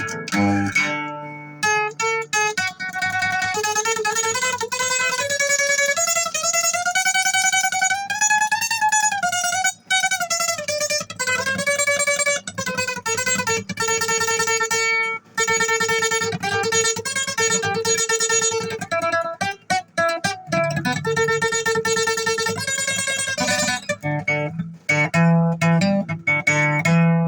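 Instrumental guitar break of a song, with no vocals: a lead guitar line with notes bent up and down over guitar accompaniment.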